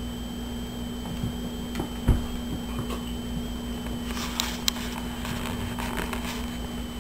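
A dog and a kitten play-fighting on a wooden floor: scattered soft knocks and scuffles, with a few sharp clicks in the second half, over a steady background hum. The loudest sound is a dull thump about two seconds in.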